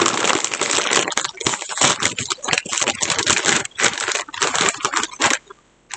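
Plastic crisp bag crinkling and crackling as it is handled and pulled open, a dense run of crackles that stops about five seconds in.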